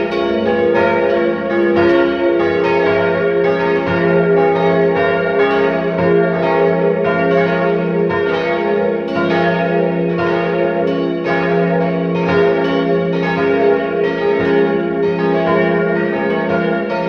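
A peal of several church bells ringing together. Their strokes come about twice a second and overlap into one continuous ringing.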